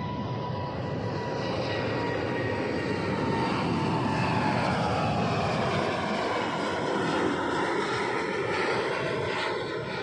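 Jet engines of a Cargolux Boeing 747 freighter climbing out after takeoff and passing overhead. The engine noise swells to its loudest in the middle and eases off near the end, with a thin whine that slowly falls in pitch as the jet passes.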